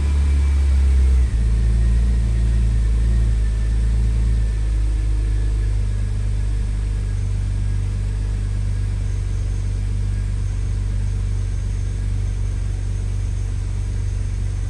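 BMW E36 M3's straight-six engine idling just after starting, its note stepping down about a second in and then running steadily. This is the idle after the idle control valve was cleaned and its worn hose replaced, and it is running better than the earlier rough low-rpm idle.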